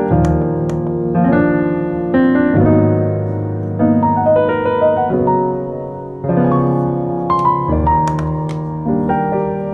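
Background piano music: a gentle melody over chords that change about once a second.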